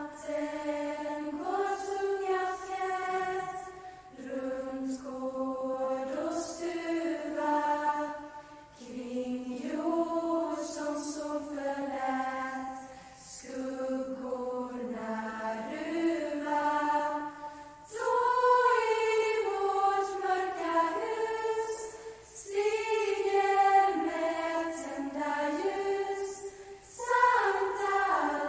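Lucia procession choir of girls and young women singing a slow song in unison, in long held phrases with brief breaths between them.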